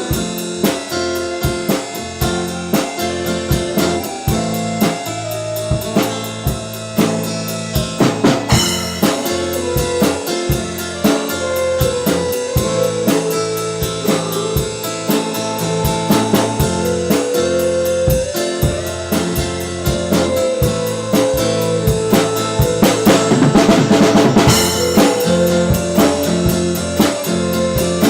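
A band playing an instrumental stretch of a song, with the drum kit keeping a steady beat under guitars and a lead guitar line. The cymbals swell louder near the end.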